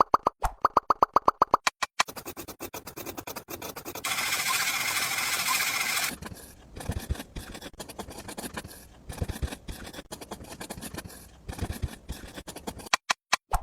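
A fast run of small popping plops at first, then dense clicking and scraping, a loud steady hiss for about two seconds, and then irregular scrapes and soft knocks.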